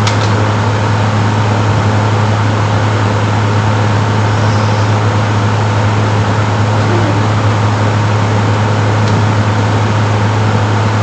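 A steady, loud electrical hum over a constant rushing noise, like a motor-driven appliance such as a fan running. It does not change at all, with a couple of faint clicks at the very start.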